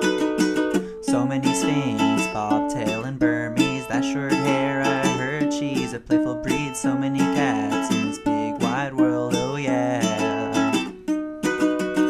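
Background music: an upbeat acoustic song led by a plucked and strummed ukulele.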